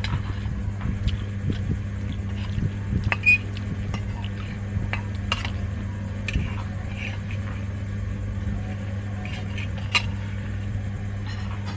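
Eating sounds: scattered clicks and taps of a spoon against a bowl over a steady low hum, with a louder tap about three seconds in and another near the end.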